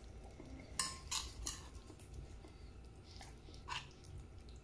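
A fork clinking lightly against a plate as pie is cut and picked at: a handful of soft, scattered clinks.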